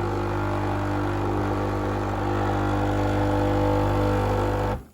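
Nescafé Dolce Gusto Infinissima capsule machine's vibratory pump running with a steady buzzing hum while it brews a milk capsule, then cutting off abruptly near the end as the brew stops.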